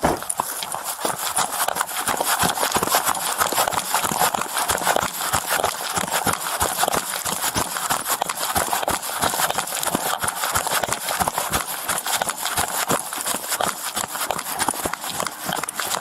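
A person running hard, with quick, regular footfalls, several a second.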